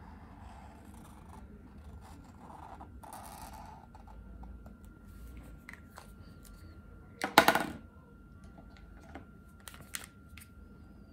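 Posca paint marker tip scratching faintly on paper, then a loud rattle of clicks about seven seconds in as the plastic markers are capped and handled against the wooden table, with a few lighter clicks after.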